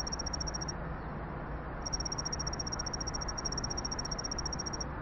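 Electronic intro sound effect: a steady low rumble with a rapid, high-pitched pulsing tone over it, which drops out for about a second near the start and then returns.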